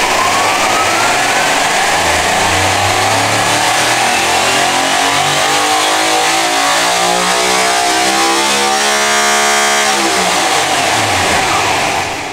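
Big-block drag-racing engine with no rods or pistons, spun by a Spintron electric motor to test its valvetrain. The mechanical noise is loud and rises steadily in pitch as the speed sweeps up to around 8,000 rpm, then falls over about two seconds as it winds down and stops near the end.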